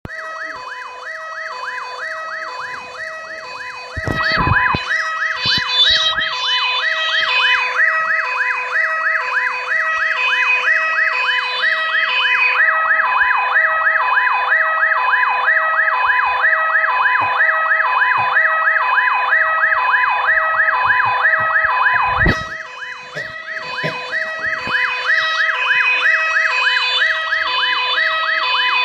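Electronic emergency-vehicle siren sounding continuously in a rapid up-and-down cycling wail, louder from about four seconds in. Two heavy thumps cut through it, about four seconds in and again near the end.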